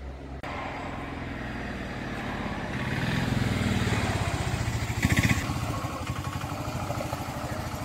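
A motor vehicle engine running close by. It grows louder toward the middle, with a brief sharper burst of noise about five seconds in, then eases off.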